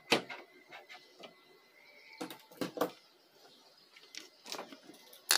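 A few sparse light clicks and knocks from hands handling the opened television's power board and cables, with a louder burst of rustling at the very end.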